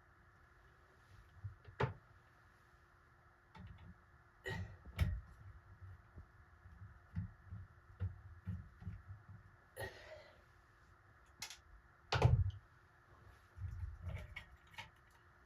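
Sporadic clicks, taps and short low thumps of hands and tools working on a ceiling fan's pull chain switch housing and wiring, the loudest a thump about twelve seconds in, over a faint steady hum.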